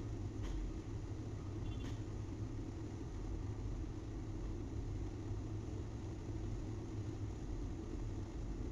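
Steady low rumble of running engines and machinery at a wood-chip unloading site, with a couple of faint clicks in the first two seconds.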